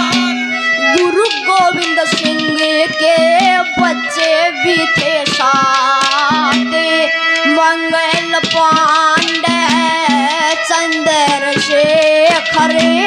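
Haryanvi ragni through a stage PA: a young voice sings a wavering melody over sustained instrumental notes and quick hand-drum strokes.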